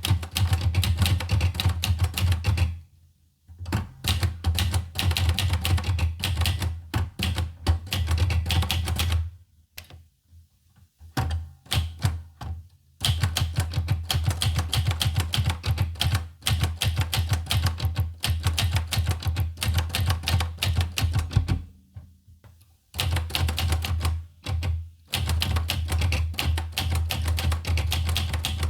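Olivetti Lettera 25 portable manual typewriter being typed on: its keys strike in fast, dense runs, broken by a few brief pauses.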